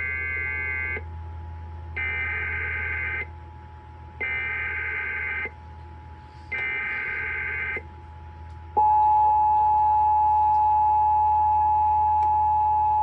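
Emergency Alert System broadcast tones: four screechy SAME header data bursts of about a second each, then the steady two-tone EAS attention signal starting about nine seconds in. They are the opening of a relayed severe thunderstorm warning.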